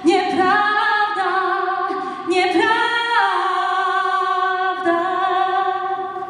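A woman singing into a handheld microphone: a slow melody of a few held notes, ending in one long note from about three seconds in.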